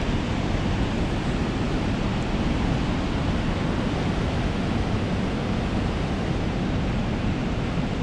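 Ocean surf breaking along the shore, mixed with wind, heard as one steady, dense rush with no single wave standing out.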